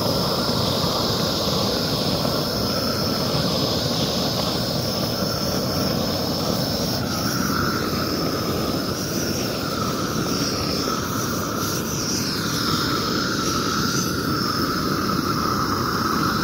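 Propane torch burning steadily with a loud, even hiss of flame, held over an asphalt crack to melt tar-rope crack filler into it.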